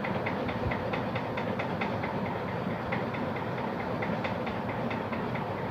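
Steady mechanical running noise with a regular, rapid ticking, about four ticks a second.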